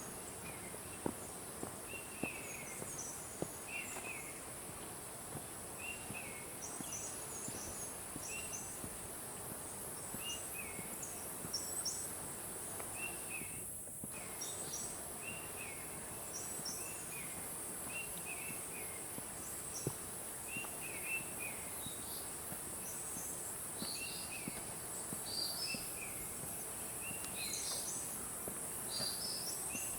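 Tropical forest ambience: a steady high-pitched insect drone, with a bird repeating a short chirped call about once a second and other birds chirping higher. A few faint footsteps land in the first few seconds.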